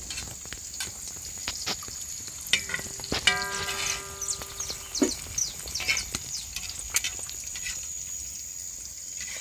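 An egg frying in hot fat in a pan, sizzling steadily with scattered crackling pops.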